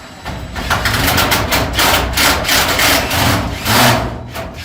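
Power drill driving a self-tapping screw through aluminum angle into a sheet-metal garage door: a loud motor run with a rattling, stuttering edge, dropping off briefly near the end.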